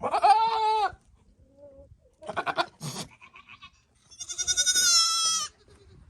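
Nigerian Dwarf goats bleating while a buck courts does in heat: a wavering bleat at the start, a short stuttering call in the middle, and a longer, higher-pitched bleat near the end.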